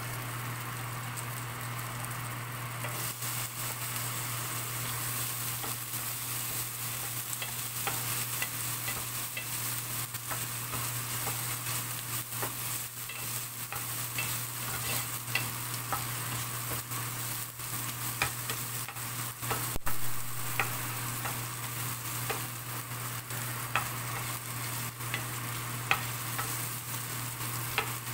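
Garlic, ginger and whole black peppercorns sizzling in hot oil in a stainless steel pan, stirred with a black spatula that scrapes and clicks against the pan. There is a sharper knock about twenty seconds in, over a steady low hum.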